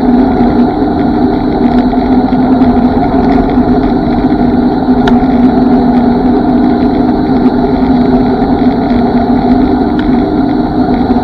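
A small vehicle's motor running at a steady speed during a ride, its pitch holding level, over road and wind noise.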